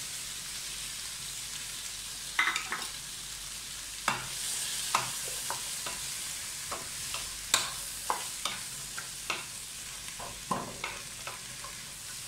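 Cut vegetables sizzling in hot coconut oil in a non-stick pan, stirred with a wooden spatula that knocks and scrapes against the pan at an irregular pace, one or two knocks a second, from about two seconds in.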